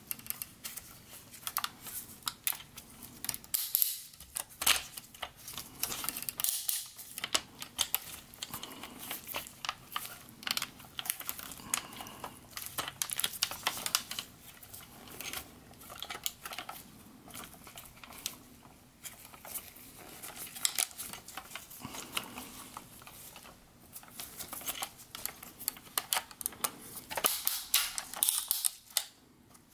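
Parts of a large transforming robot toy, a Gigapower Grassor Dinobot figure, clicking and knocking as they are handled and pressed together into a compression fit. The clicks come irregularly and many times a second, with brief lulls.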